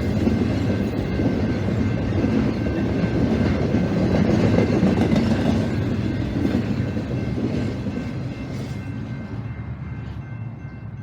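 A short intermodal freight train rolling past with a steady rumble and the clatter of wheels on the rails. The sound fades away over the last few seconds as the train moves off.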